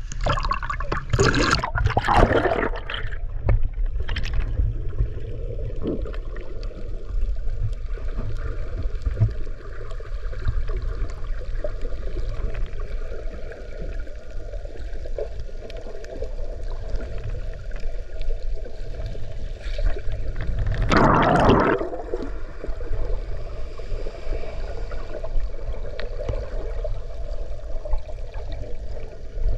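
Seawater heard from a submerged camera: a steady, muffled low rumble of water moving around the camera. Splashing as the camera goes under the surface in the first few seconds, and a brief gurgling burst about 21 seconds in.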